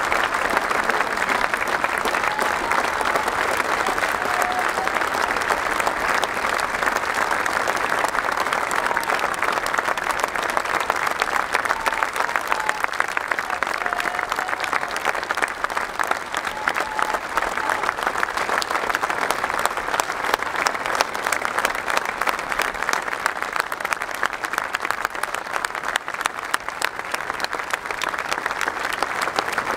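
A large stadium crowd applauding steadily and without a break, a dense mass of clapping.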